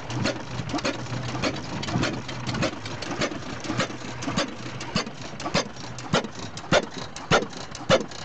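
6 HP Amanco stationary oil engine running, each firing stroke a sharp exhaust bang coming regularly between one and two times a second. The bangs grow louder and sharper about halfway through.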